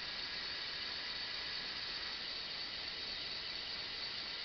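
Steady high hiss and whir of the small electric motors and plastic gearing of a remote-controlled LEGO Technic telehandler model as it lowers its fork boom.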